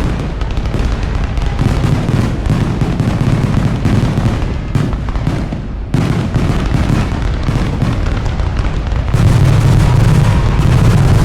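Aerial fireworks bursting in quick succession, a dense run of booms and crackle with no break, growing louder about nine seconds in.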